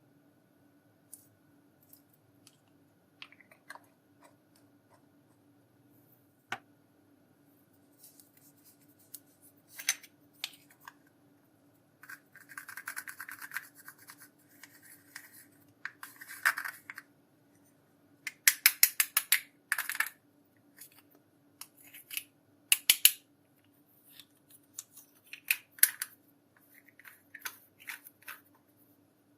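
Small clicks, taps and scratchy scraping from hands working makeup products and clear slime. A run of about eight quick clicks comes a little past halfway, followed by a few sharp snaps.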